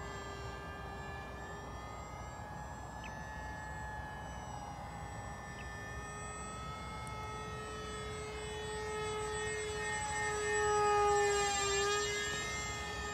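Electric brushless motor and pusher propeller of a 3D-printed RC ICON A5 model plane in flight: a steady whine with overtones. It rises a little in pitch partway through, grows louder as the plane closes in, and its pitch drops as the plane passes close by near the end.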